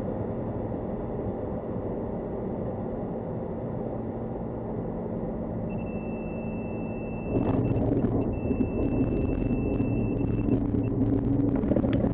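Cirrus SR20's engine at idle, heard inside the cockpit during the landing flare, with a steady high warning tone, typical of the stall warning horn, sounding in two stretches. About seven seconds in the wheels touch down and the sound steps up into louder rolling rumble with light rattles.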